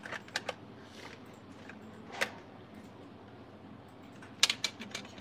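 Scattered light clicks and taps of small hard objects, such as phones and plastic cases, being handled on a desk. A louder little cluster of clicks comes about four and a half seconds in.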